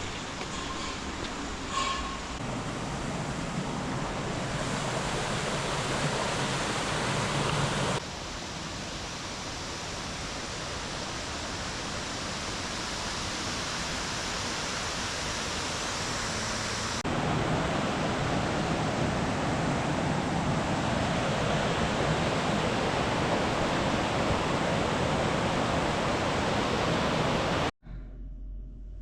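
Steady rush of flowing water, in three stretches that change abruptly at about 8 and 17 seconds in, stopping suddenly near the end.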